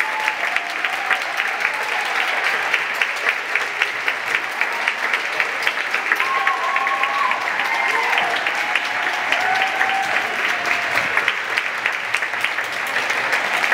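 Audience applauding steadily, with a few voices cheering over the clapping.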